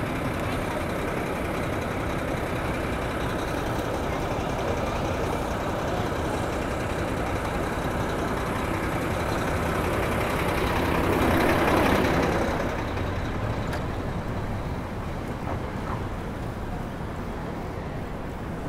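City street traffic heard from a moving bicycle: a steady rush of vehicle and road noise, with a louder swell that builds and fades about eleven to twelve seconds in, as of a large vehicle passing close.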